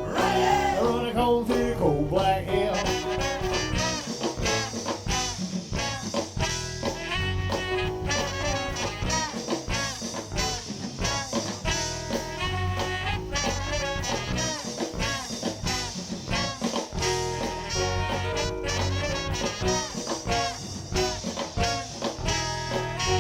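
Live swing band with a horn section of sax, trombone and trumpet over drums and bass, playing an instrumental break in a swing-revival song.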